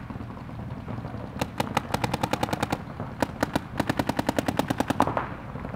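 Paintball marker firing two rapid strings of shots, about ten a second, with a short pause between them.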